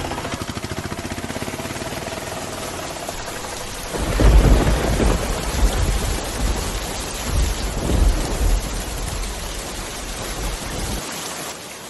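Steady rain, with a long rolling rumble of thunder from about four seconds in that dies away over the next five seconds or so.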